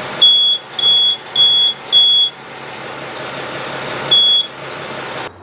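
Piezo warning buzzer wired into a truck's new instrument panel, giving four short high-pitched beeps about 0.6 s apart, then one more after a pause, over the steady hum of the running truck.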